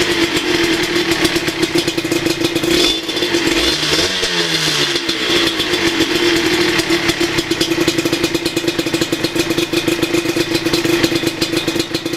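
Honda CRM125 two-stroke single-cylinder engine breathing through a DEP aftermarket exhaust: blipped once about three seconds in with the revs falling away, then held running steadily with a rapid, pulsing exhaust note.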